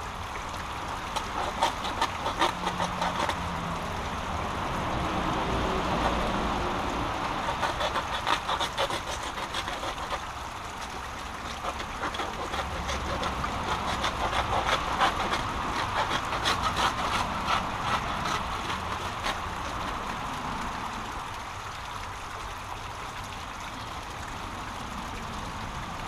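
A small brook's water rushing steadily over a small waterfall, with frequent clicks, knocks and small splashes from hands pulling sticks and litter out of the water.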